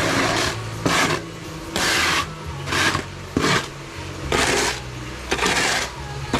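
Shovel scraping through concrete in repeated strokes, about one every 0.8 s, as the concrete is mixed by hand; an engine runs steadily underneath.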